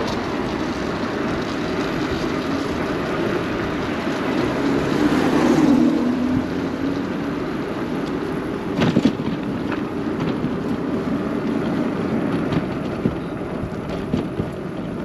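Wind and road noise from an e-bike ridden along a city street in traffic. The noise is steady, swells to its loudest about five to six seconds in, and has a few sharp knocks about nine seconds in.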